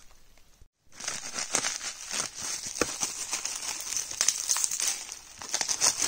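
Plastic bubble wrap crinkling and crackling as hands handle and unwrap bubble-wrapped packages, beginning about a second in after a brief quiet moment.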